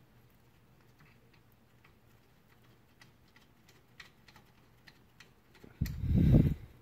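Faint, scattered light clicks of a rusty brake caliper and its metal hardware being handled. About six seconds in, there is a loud, low, dull thump that lasts under a second.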